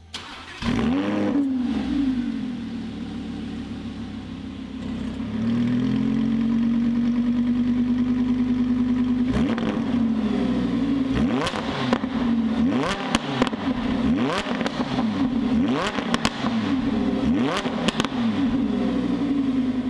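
Lamborghini Huracán LP580's V10 on its original factory exhaust: it starts about half a second in with a rev flare, settles, then steps up to a higher steady idle about five seconds in. From about halfway it is revved in a series of quick throttle blips, with sharp pops as the revs fall.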